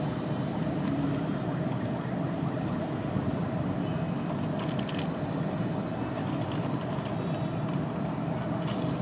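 Steady low engine rumble like a truck running, with a faint steady tone over it. A few faint clicks come about five seconds in and again near the end.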